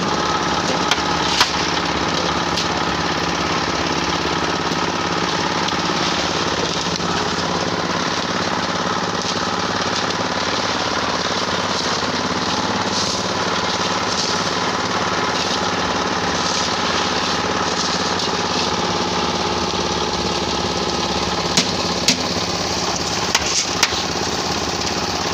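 Engine-driven concrete mixer running steadily under load, a small engine chugging as the drum turns. A few sharp knocks break in about a second in and again near the end.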